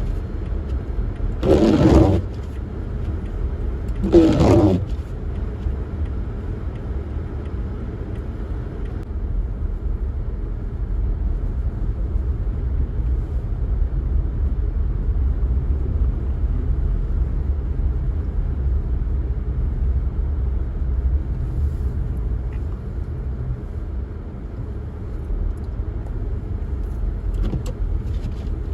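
Steady low rumble of a car driving, with three short, loud whooshes in the first five seconds.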